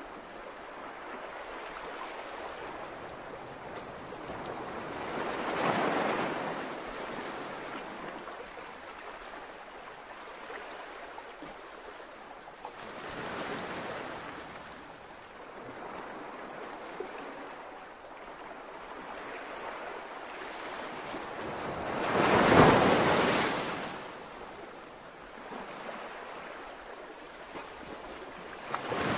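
Sea waves washing in: a steady rush of surf that swells and fades every several seconds, loudest about two-thirds of the way through.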